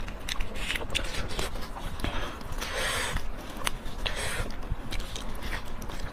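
Close-miked eating sounds: chewing and biting pork leg curry with rice, with many small wet clicks and smacks and a longer breathy rush about three seconds in.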